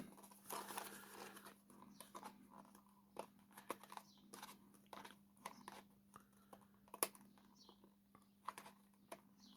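Faint scattered clicks and crinkles of a plastic blind-box toy package being worked open by hand, a part stuck and not yet letting go, over a low steady hum.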